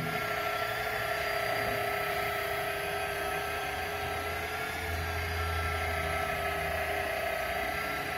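Handheld electric car polisher running steadily with a foam pad pressed on car paint, its motor giving an even whine.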